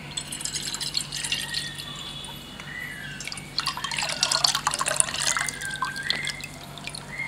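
Milk poured in a stream into a stainless steel pot, splashing and dripping as it fills. The pouring starts under a second in and is loudest past the middle.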